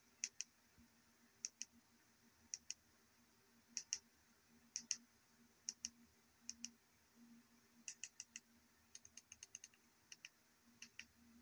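Clicking of the push buttons on a selfie ring light's inline cable controller, as the light is stepped through its colour modes and brightness levels. The clicks come in close pairs, about one pair a second at first, then in quicker runs near the end.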